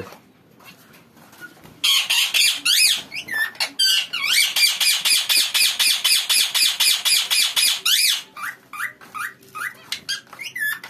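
Caged budgerigars chattering with rapid high chirps and squawks that rise and fall in pitch. The chatter starts about two seconds in, is densest in the middle and thins out near the end.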